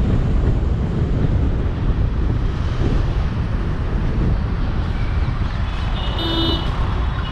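Steady low rumble of road and wind noise from a car driving through city traffic, with a short pitched tone about six seconds in.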